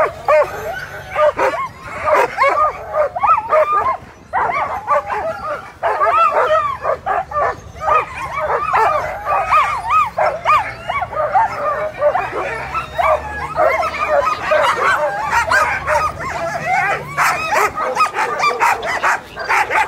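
A team of sled dogs barking, yipping and whining all at once, many overlapping calls without a break: the excited clamour of dogs held at the start line, eager to run.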